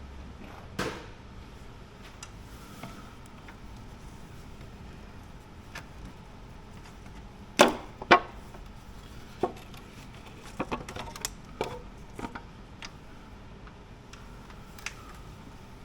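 Scattered clicks and knocks of hand tools and bolts being handled on the engine, the two loudest close together about halfway through, then a quick run of lighter taps.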